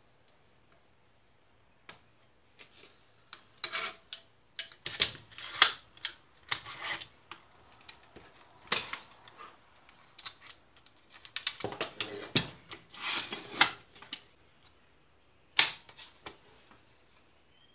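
Plastic and metal parts of an airsoft gun being handled on a table: irregular clicks, knocks and short scrapes as the receiver is moved and fitted, loudest around the middle and ending with one sharp knock near the end.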